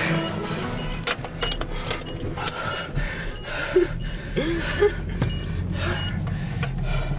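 Camcorder being handled close to the microphone: rustling, knocks and scrapes over a low steady hum, with a few brief squeaks near the middle.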